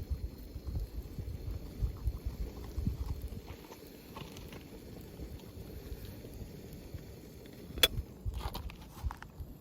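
Wood fire burning in a small folding fire stove: low, uneven rumbling for the first few seconds, then one sharp crack from the fire a little before the end, followed by a few fainter ticks.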